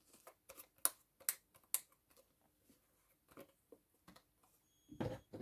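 Faint small clicks and light plastic knocks as the screw cap is twisted off a plastic bottle of ceramic glaze, then a louder short scrape or knock near the end.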